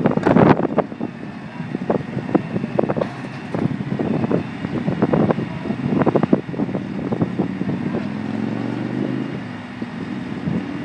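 Wind buffeting the microphone in irregular gusts, with a vehicle engine running steadily near the end.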